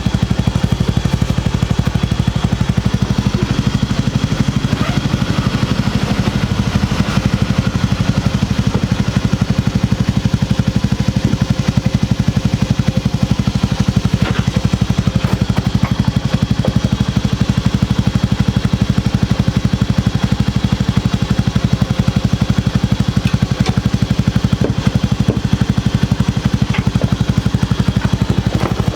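Honda CT125 Hunter Cub's single-cylinder engine running at a steady, even beat, with no change in speed.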